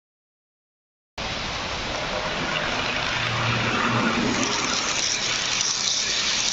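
H0-scale model train running along the track: a steady rushing rumble of wheels on rails, starting abruptly about a second in, with a brief low motor hum near the middle.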